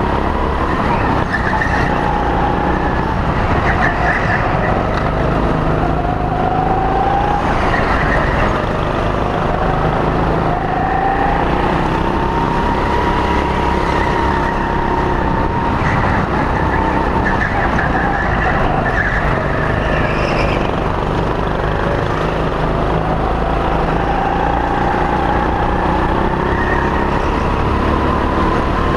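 Go-kart motor heard from onboard at racing speed, its pitch climbing and dropping repeatedly as the kart accelerates down the straights and slows for the corners, over a heavy rumble of the kart's running noise.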